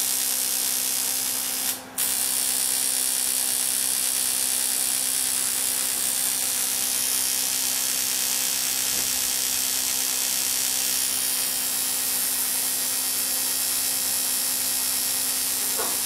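Vis Influere high-frequency therapy device, a hand wand with a glass electrode held against the sole of the foot, giving off a steady hiss over a constant low hum. The sound cuts out briefly about two seconds in.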